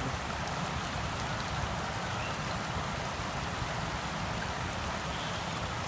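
Steady rushing of a shallow river running over rocks.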